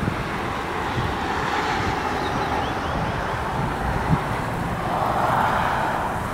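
Rolls-Royce Trent 7000 turbofans of an Airbus A330-900neo airliner running on the runway, a steady jet noise that swells about five seconds in. Wind buffets the microphone throughout.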